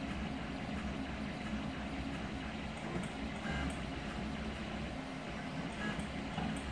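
Home-built CoreXY 3D printer running a print: stepper motors whirring as the print head moves, over the steady hum of the hot-end and part-cooling fans. Short higher-pitched motor tones come and go a few times.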